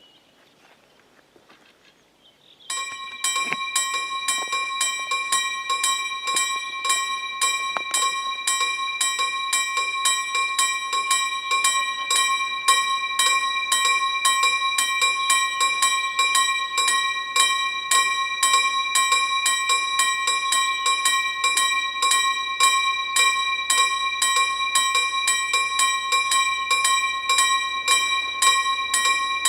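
Railway level crossing warning bell starting to ring about three seconds in and then striking steadily and rapidly, about three strikes a second: the crossing's warning of an approaching train.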